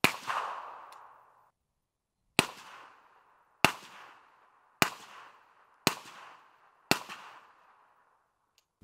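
Suppressed 7.62x39 rifle shots: one shot from a long-stroke-piston AK at the start, then five evenly spaced shots about a second apart from a direct-impingement CMMG MK47 Mutant. Both fire through the same Energetic Arms Vox suppressor, each shot a sharp crack with a short decaying tail.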